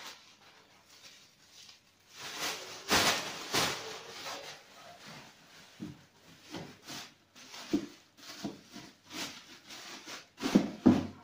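A black plastic rubbish bag rustling and crinkling as it is shaken open and handled, in irregular bursts, louder about three seconds in and again near the end.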